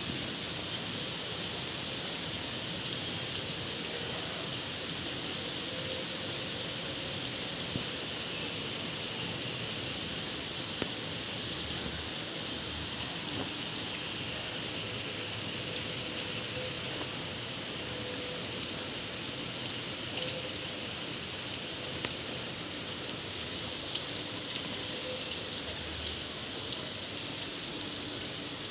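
Steady rain falling, an even hiss with scattered sharper ticks of individual drops striking a surface.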